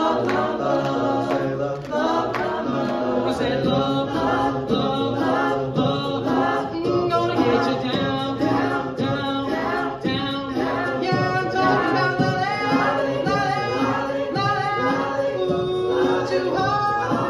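Male a cappella ensemble, tenors and basses (TTBB), singing in close harmony through microphones over a steady percussive beat.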